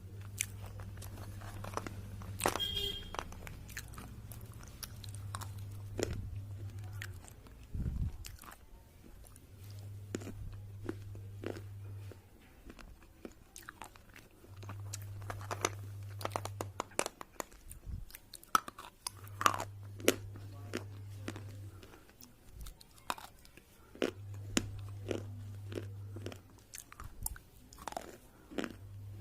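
Close-up crunching and chewing of red slate pencils: sharp, brittle crunches as the thick sticks are bitten and ground between the teeth. A low hum comes and goes every couple of seconds beneath it.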